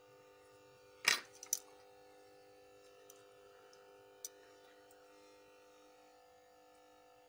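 A few sharp clicks and clatters about a second in, then a single lighter click a few seconds later: metal tweezers and tools being set down and handled on a wooden workbench. A faint steady hum runs underneath.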